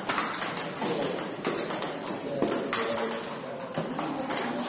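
Table tennis ball clicking off the paddles and bouncing on the table in quick, irregular succession during a rally.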